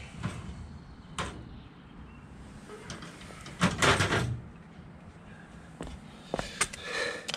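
Tools being handled while a pair of snips is fetched: scattered knocks and clicks, with a noisy rattle lasting under a second about halfway through as the loudest sound.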